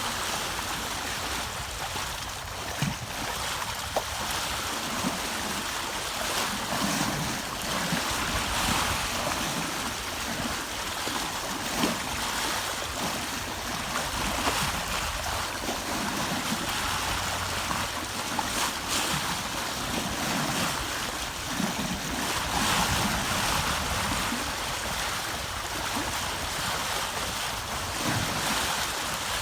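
Water rushing and splashing along a sailboat's hull under way, swelling and easing every few seconds, with wind rumbling on the microphone and a few brief knocks.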